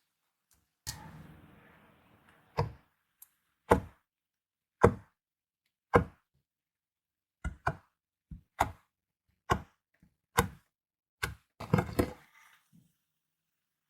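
Clear slime being pressed and folded by hand, giving a series of sharp clicks and pops, about one a second at first and in quicker clusters near the end.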